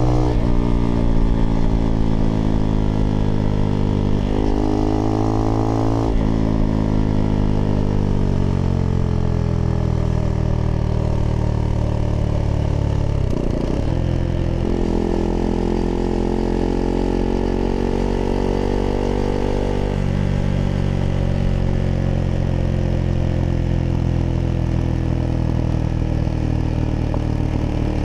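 Husqvarna Svartpilen 401 single-cylinder engine running through an aftermarket IxRace Mk.2 exhaust while riding. The revs fall through a couple of gear changes in the first few seconds and cut out briefly about halfway. The engine then runs steadily and steps down to lower revs about two-thirds of the way through.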